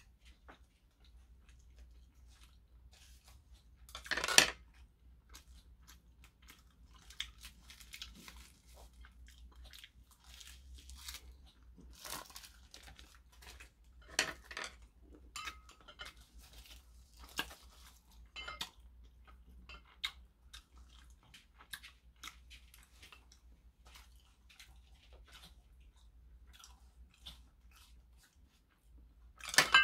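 Close-up eating sounds of a man chewing a meal of kimchi stew with ramen noodles, and rice wrapped in roasted seaweed: irregular crunching and chewing clicks, with two louder sharp bursts, about four seconds in and near the end.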